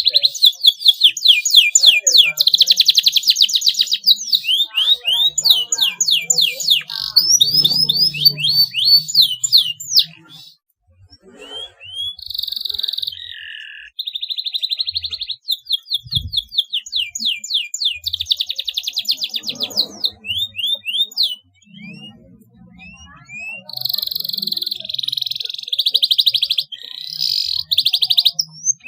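Domestic canary singing: long runs of very fast, high trills and rolls, broken by two short pauses about ten and twenty-one seconds in.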